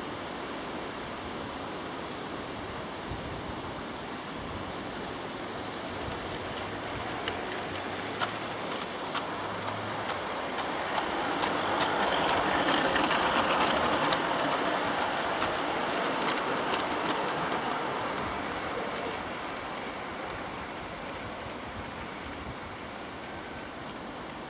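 O gauge model diesel locomotive and a rake of HEA coal hopper wagons running past on the track: the rumble of wheels on rail, with light clicks at the rail joints, builds to its loudest about halfway as the train passes close and then fades as it runs away, over a steady background hiss.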